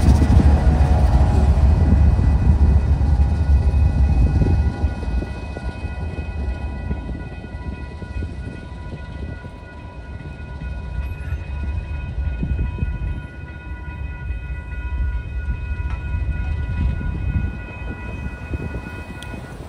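The rear GE distributed-power locomotives of a freight train rumble past and fade about four and a half seconds in. A railroad grade-crossing warning bell rings steadily and stops near the end as the gates rise.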